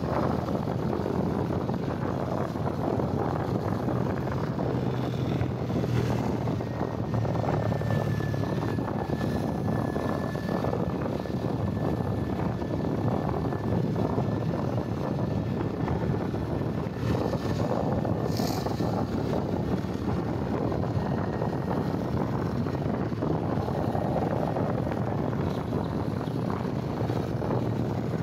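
Motorcycle engine running at a steady cruising speed, with road and wind noise. A faint thin high tone runs through the middle, and there is one brief sharp high sound about 18 seconds in.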